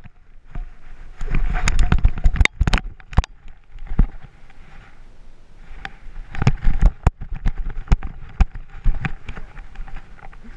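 Irregular rattling and knocking from a dog's back-mounted camera harness and metal chain collar as the dog moves about in snow. The rapid knocks come in two bouts, with a quieter stretch between them.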